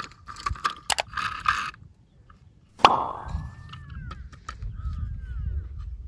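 Clicks and rattles of a die-cast toy tractor being handled, with one sharp knock about three seconds in, followed by a low rumble of handling noise.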